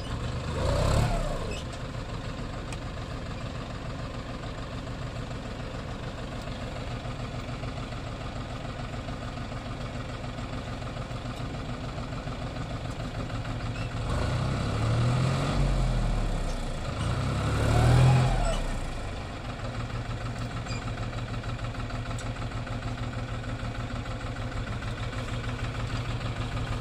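A vehicle engine idling steadily. It is revved briefly about a second in and twice more in close succession later on, its pitch rising and falling each time; the second of those two revs is the loudest.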